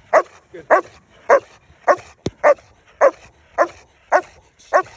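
German Shepherd guard dog barking steadily at a decoy in protection training, about nine deep, even barks a little under two a second. A single sharp click comes about halfway through.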